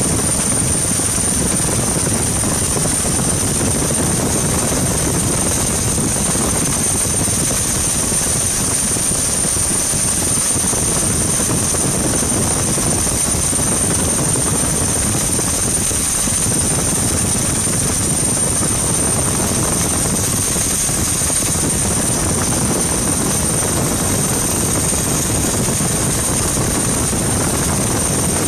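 Helicopter running steadily, heard from on board: a constant rotor and engine noise with a steady high whine over it.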